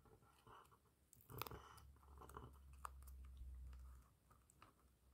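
Near silence with faint paper rustles and small taps as a small paper cutout is handled and pressed onto a notebook page.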